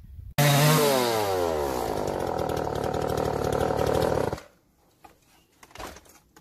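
String trimmer running while mowing grass. Its engine pitch drops over the first second or so, then holds steady, and the sound cuts off abruptly near the end.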